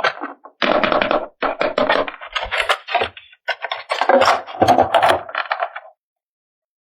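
Hands handling toy packaging and plastic parts: a dense run of rustling, scraping and small knocks that stops about six seconds in.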